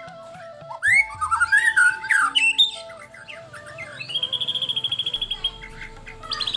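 White-rumped shama singing a quick run of rising and falling whistled notes, followed a couple of seconds later by a fast, even, high trill.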